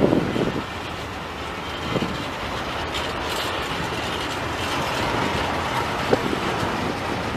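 A train running past on the track: a steady rumble of wheels on rail, with a heavy knock right at the start and lighter knocks about two and six seconds in.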